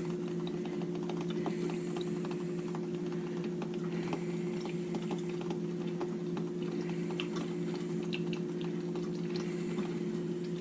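Drip coffee maker heating and pushing a vinegar cleaning cycle through: a steady low hum with irregular small ticks and pops.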